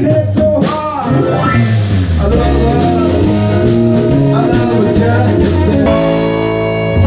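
A live band playing with a prominent bass line and some singing. About six seconds in, the music changes abruptly to a different passage.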